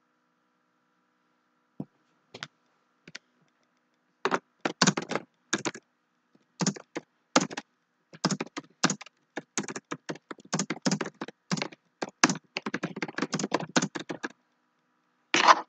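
Typing on a computer keyboard: a few scattered keystrokes, then a long run of rapid key presses, and one louder knock near the end.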